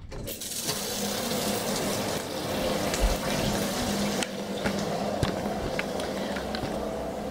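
Shower running: a steady hiss of water spray that comes on abruptly, with a low steady hum underneath and a few sharp clicks.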